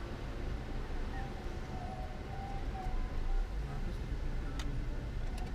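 Steady low rumble of road and engine noise inside a 2002 Toyota Corolla Altis cruising on a highway, with a few faint short tones above it.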